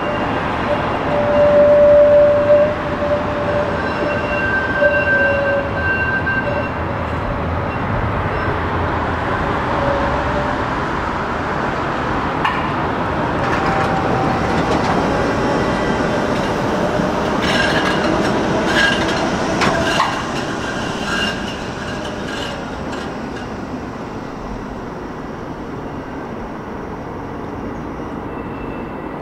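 Tram running past close by on street rails: a steady rumble with high whining tones in the first ten seconds, then a run of clicks and clacks from the wheels between about eighteen and twenty-one seconds in, easing off toward the end.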